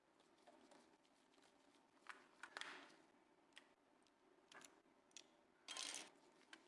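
Faint clicks and short scrapes of a PS4 controller's plastic parts being handled during repair: a few separate clicks scattered through, and a longer scrape near the end, the loudest sound.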